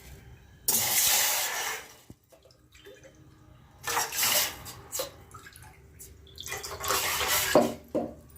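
Water poured into a pot, one cup after another: three pours of about a second each, with shorter splashes between.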